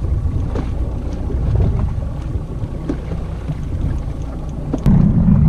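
Steady low rumble of a small outboard boat under way at sea, with wind buffeting the microphone. Near the end the noise turns abruptly louder.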